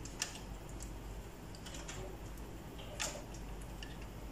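Light plastic clicks and taps as a bundle of power-supply cables and their connectors is handled inside a desktop computer case. A few sharp clicks, the loudest about three seconds in.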